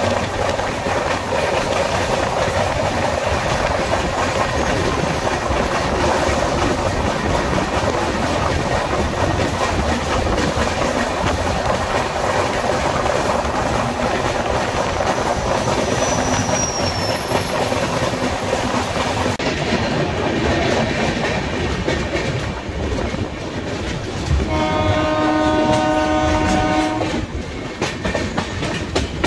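Passenger train running at speed, heard from an open coach door: dense wheel-on-rail clatter and rushing air, heaviest while running alongside a passing freight train. About three-quarters of the way through, a train horn sounds one steady chord for about three seconds.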